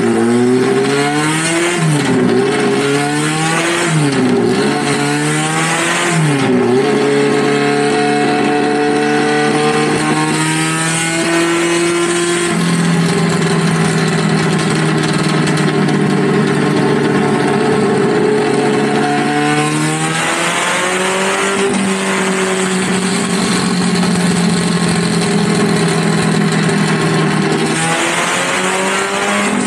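Zakspeed Ford Escort RS1800's 1840cc four-cylinder race engine running loud on a rolling road: blipped up and down in quick rises and falls three or four times, then climbing steadily and held at high revs, with steps in pitch about twelve and twenty seconds in.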